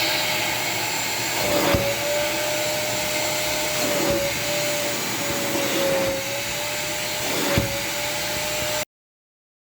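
Vacuum cleaner fitted with an upholstery extractor nozzle, running steadily with a slightly wavering motor whine, with a few sharp knocks as the nozzle works; the sound stops abruptly near the end.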